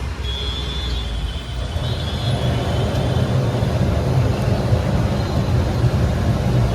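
Steady low rumble that grows louder about two seconds in.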